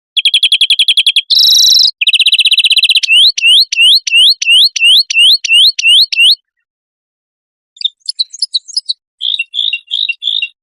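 Recorded songbird song from an edited mix of several singing birds: a fast trill, a short harsh burst, another trill, then a run of about ten rising whistled notes, and after a pause some scattered chirps.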